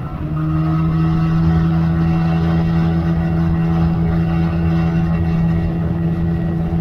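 Outboard motor of a small aluminum boat running under way at a steady, unchanging pitch, with water rushing past the hull.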